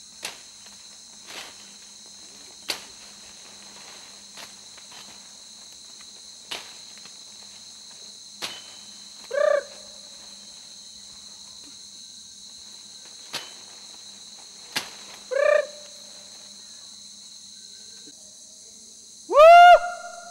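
Rainforest ambience: a steady high insect drone with scattered sharp clicks. Rising, hoot-like animal calls come three times, the last near the end the loudest.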